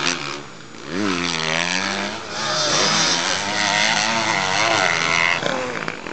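Motocross bike engines revving, their pitch rising and falling over and over with the throttle, with a brief quieter dip about half a second in.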